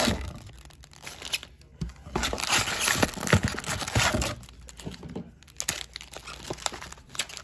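Foil trading-card packs crinkling and rustling as they are pulled out of a box and stacked on a table, in bursts that are loudest from about two to four seconds in and quieter after that.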